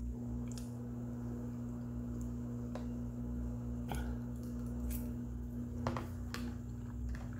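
Eating at a table: a fork clicking a few times against the bowl, with quiet mouth and chewing noises, over a steady low hum.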